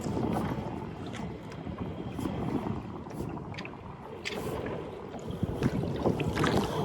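Water sloshing and gurgling against a canoe hull as it sits stopped on the lagoon, with wind buffeting the microphone. A few short splashes come through, and the wash grows louder near the end.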